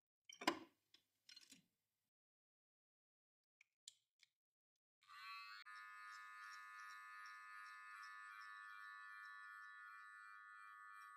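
A few light handling clicks and knocks in the first second and a half, then near silence. About five seconds in, an electric hair clipper switches on and runs with a steady whine.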